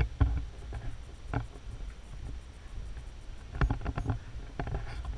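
Handling noise from a camera carried on foot: a steady low rumble with scattered light clicks and taps, several coming close together a little past halfway and again near the end.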